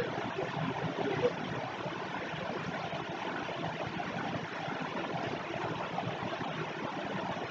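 Steady rushing background noise, with a brief tick just over a second in.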